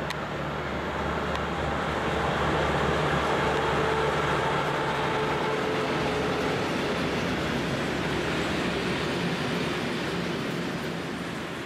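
Freight train of tank wagons passing at speed behind a diesel locomotive: the locomotive's engine drone at first, then a steady noise of wheels running on the rails that swells, holds, and eases off near the end.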